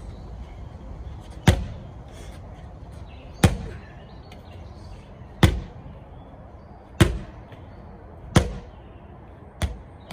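Medicine ball slammed down onto wooden decking six times, about one and a half to two seconds apart, each hit a sharp thud with a short bounce after it.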